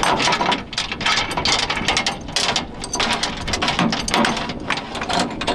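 Steel chain rattling and clinking against the hooks and steel edge of a tractor loader bucket as it is pulled through by hand. It is a quick, irregular run of metal clinks.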